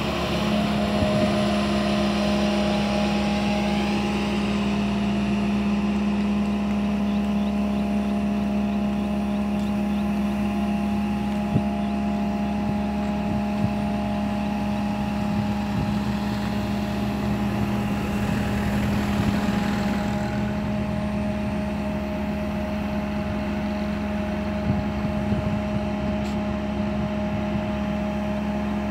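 Komatsu PC160LC excavator's diesel engine running at a steady pitch while the boom and bucket work, with a few light knocks along the way.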